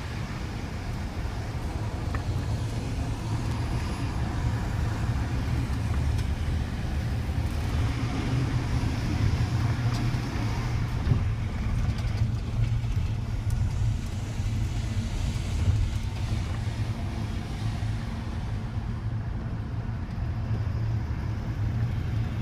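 Truck engine running with a steady low drone, with road and tyre noise that grows louder for a few seconds in the middle.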